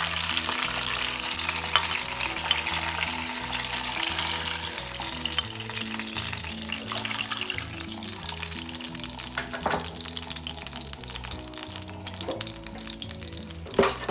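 Water poured onto a hot oil tempering in a kadai sizzles loudly and gradually dies down. A background tune plays underneath, and a sharp knock comes near the end.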